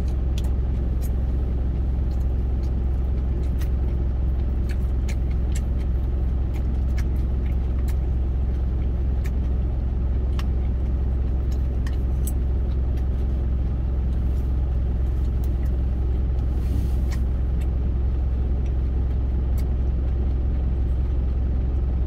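Truck engine idling steadily, heard from inside the cab as a constant low rumble. Occasional light clicks and taps of a spoon and a steel lunch tin being eaten from come through over it.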